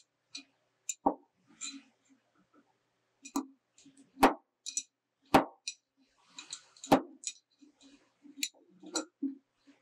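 Bench vise's sliding handle bar knocking metal-on-metal against its end stops as it is slid and turned in the screw, about five sharp clanks with lighter clicks between them.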